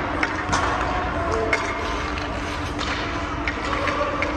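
Ice-rink sounds: scattered sharp clacks of hockey sticks, pucks and skate blades on the ice, over a steady low hum.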